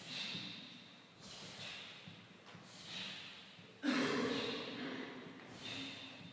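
Taekwondo students' sharp hissed breath exhalations, made in unison with each technique of a pattern, coming about once a second and echoing in a hall. About four seconds in comes a louder, voiced shout.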